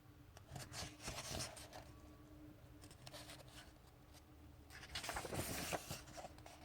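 Paper pages of a paperback graphic novel being turned by hand: two rustling bursts, a short one about a second in and a louder, longer one near the end.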